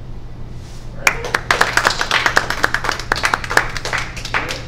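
A small audience applauding: a handful of people clapping, with individual claps heard, starting about a second in. A steady low room hum runs underneath.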